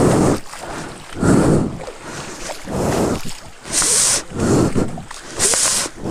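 Footsteps wading through a shallow, flowing stream over pebbles, splashing in a rough rhythm about once every second or so, some splashes sharper and hissier than others.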